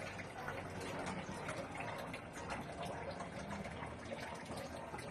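Water splashing and trickling in a basin as hands work in it, with many small irregular splashes.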